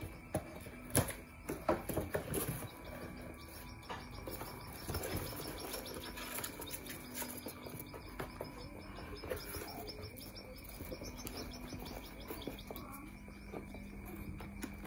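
Cardboard box flaps being handled and pulled open, a few clicks and knocks, then a long run of fast, high, thin peeping from young chicks inside the box.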